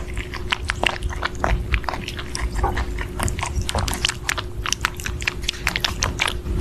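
Rabbit chewing and biting into strawberries close to the microphone: a quick, irregular run of small clicks and crunches.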